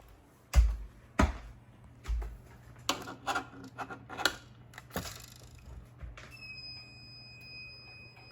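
A few sharp knocks and clicks over a low hum, then a steady high-pitched electronic tone held for about two seconds near the end.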